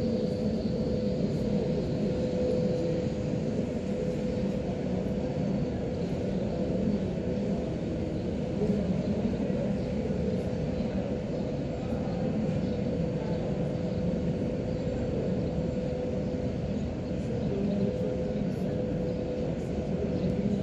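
Steady room ambience of a large mosque hall: a continuous low rumble with a constant mid-pitched hum, like ventilation machinery running.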